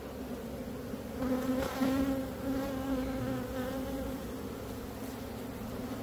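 A mass of honeybees buzzing steadily from a disturbed colony being scooped out of an opened roof. The buzz swells louder for a few seconds starting about a second in, then settles back.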